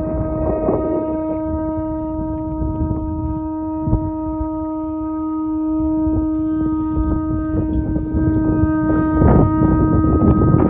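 A shofar is blown in one long, steady note held for about ten seconds. Wind buffets the microphone throughout, heavier near the end.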